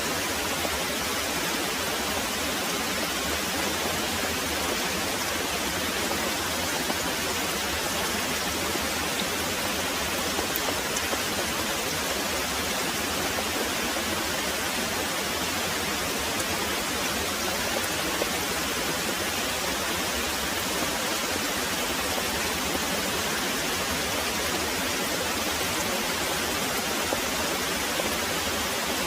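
Very heavy rain pouring steadily, an even, unbroken hiss of rainfall.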